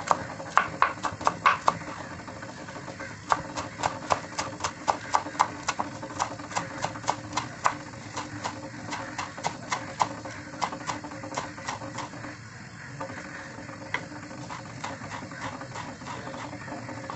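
Kitchen knife chopping spring onions on a cutting board in quick, even strokes, about four a second, thinning to a few scattered cuts after about twelve seconds.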